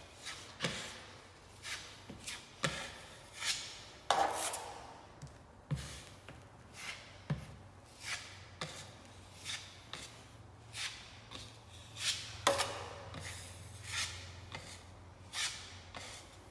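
Metal drywall knife scraping topping mud across a wall in short repeated strokes, a little more than one a second, with two longer, louder strokes about four and twelve seconds in.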